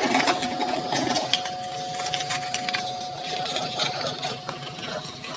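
A small motor whirring with a steady hum that stops about five seconds in, with scattered light plastic clicks and rattles.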